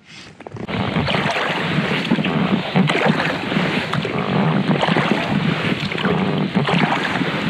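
Loud, gusty wind noise rushing and crackling on the microphone over open water. It starts abruptly just under a second in.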